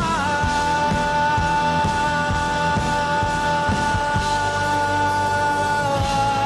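Pop-rock backing music: a long, steady held note over a regular drum beat, dipping slightly in pitch near the end.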